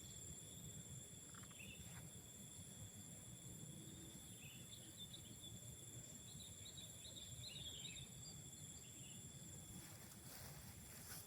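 Faint tropical forest ambience: insects keep up a steady high-pitched drone on several constant tones. Near the middle come a few faint short bird chirps, over a low background rumble.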